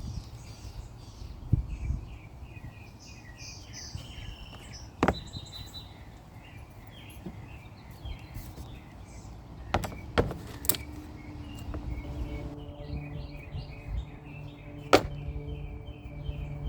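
Birds chirping, with a few separate sharp knocks from hand work on a wooden panel. Background music with held notes comes in about twelve seconds in.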